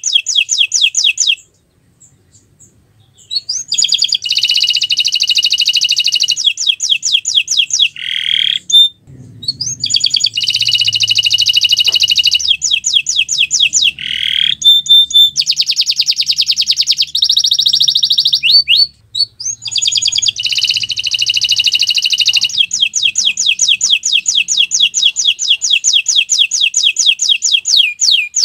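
Domestic canary singing long rolling trills of rapid repeated high notes, phrase after phrase, with short pauses between some phrases.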